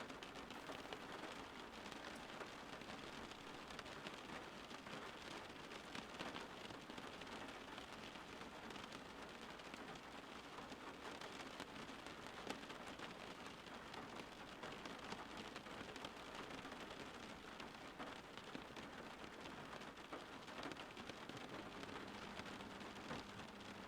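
Steady light rain falling on leaves, an even patter of many small drops.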